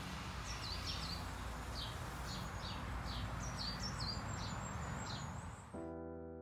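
Outdoor ambience: a small bird chirping repeatedly in short falling calls over a steady background hiss. About six seconds in, the ambience cuts off abruptly and piano chords begin.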